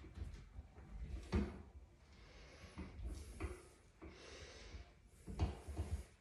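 Dull knocks and clunks about every two seconds from someone shifting on a metal-framed workout bench, with heavy breaths in between.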